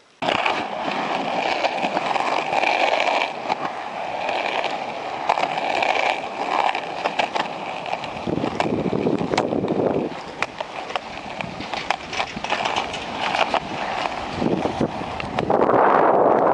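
Plastic cruiser skateboard rolling over concrete pavement: a steady, loud wheel rumble with sharp clacks here and there.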